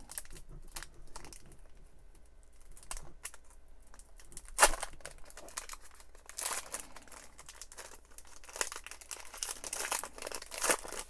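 Plastic wrapper of a baseball card pack crinkling and tearing as it is peeled open by hand. There is one loud crackle about halfway through and denser crinkling in the second half.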